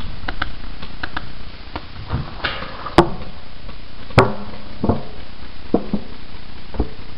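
Two sharp paintball-marker shots about a second apart, with scattered light clicks and gear handling around them.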